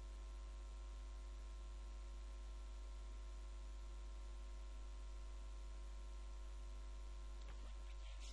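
Steady low electrical mains hum with faint hiss, with a few faint clicks near the end.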